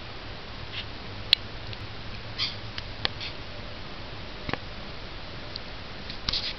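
A steady low hum with a few sharp, isolated clicks spread a second or two apart and two brief scuffing sounds, one about two and a half seconds in and one near the end.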